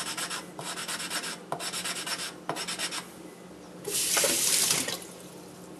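Wooden block scrubbing a steel kitchen-knife blade with wet coarse Kongo-to (#120) abrasive powder slurry: four gritty rasping strokes. Near the end, about a second of splashing water, louder than the scrubbing.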